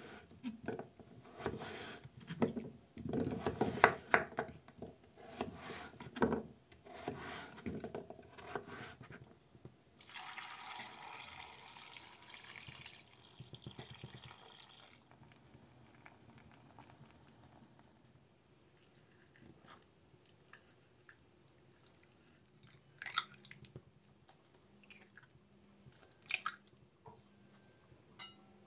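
A kitchen knife cuts raw pumpkin, a series of uneven chopping strokes, then a stream of water pours into a stainless steel pot of pumpkin cubes for about five seconds. A few sharp taps come near the end.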